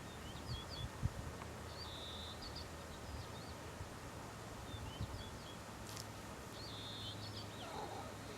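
A horse snoring in deep sleep, a low steady rumble, with small birds chirping now and then.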